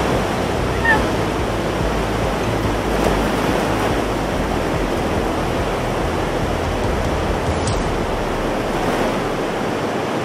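Ocean surf breaking and washing up a sandy beach, with wind rumbling on the microphone. A short high squeak sounds once about a second in.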